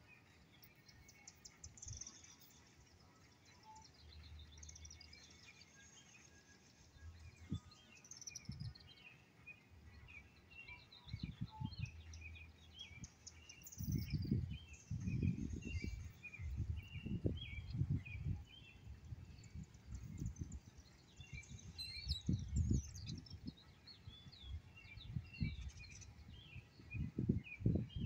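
Songbirds chirping and singing in quick high phrases throughout. Bursts of low rumbling noise on the microphone come and go, louder and more frequent from about halfway through.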